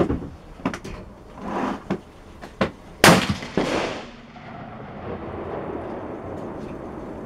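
AR-15 rifle in .223 Remington fired twice about half a second apart, each shot ringing off the concrete firing bay, with fainter sharp cracks before them.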